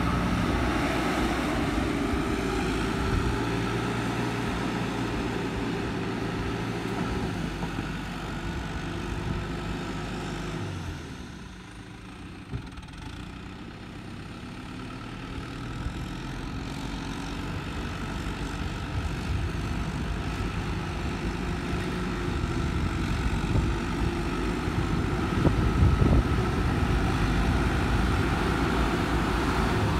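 Case IH JX100 tractor's diesel engine running steadily as it drags a rear-mounted levelling blade over dry dirt. It fades as the tractor moves off about ten seconds in, then grows louder again as it comes back close.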